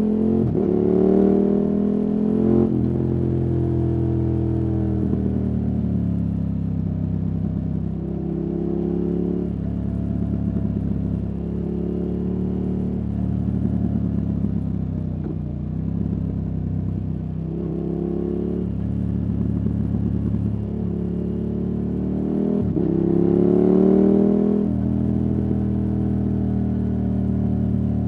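KTM 1290 Super Adventure S's 1301 cc V-twin engine, fitted with a Wings aftermarket exhaust, running under load through mountain bends. The engine note rises as it accelerates about a second in and again near the end, easing back and pulling again in between.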